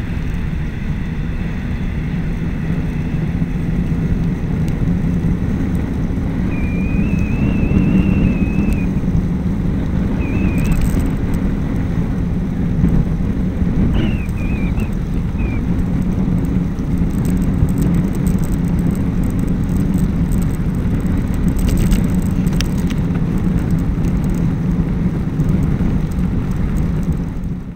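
Steady rushing wind and road noise on a camera mounted on a moving bicycle, with tyres hissing on wet tarmac. A few short high chirps come through about a quarter and about half of the way in.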